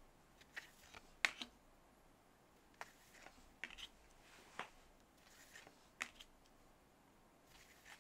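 2023 Bowman paper baseball cards being flipped through one at a time, each card slid off the front of the stack and tucked behind, giving faint, irregularly spaced clicks and swishes of card against card.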